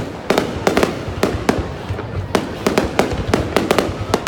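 Aerial fireworks display with shells bursting overhead: a quick, irregular string of sharp bangs and cracks, several a second.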